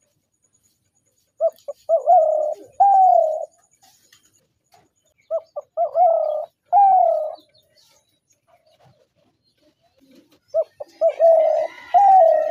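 Spotted dove cooing: three calls about four seconds apart, each a couple of short soft notes and then longer falling coos. The last call is still running near the end.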